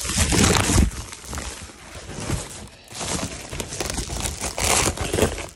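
Packing wrap being pulled off and crumpled by hand: irregular crinkling and rustling that swells and fades, with the loudest stretches at the start and again near the end.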